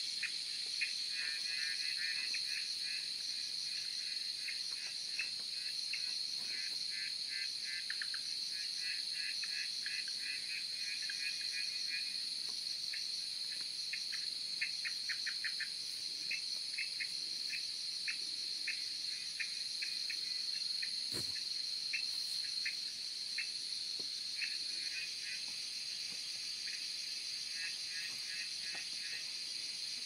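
Chorus of insects: a steady high-pitched chirring with repeated trains of rapid chirps over it.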